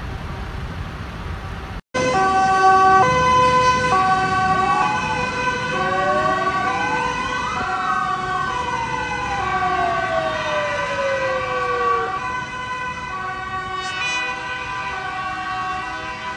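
Emergency vehicle sirens: a two-tone siren alternating steadily between a high and a low note, with a second siren wailing up and back down in pitch from about five seconds in. Before them, for the first two seconds, there is road rumble from the tractor column, which cuts off abruptly.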